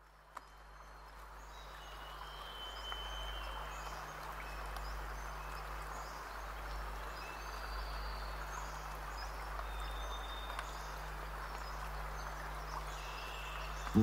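Faint outdoor night ambience by a river: a steady hiss with a low hum under it, and scattered short high chirps.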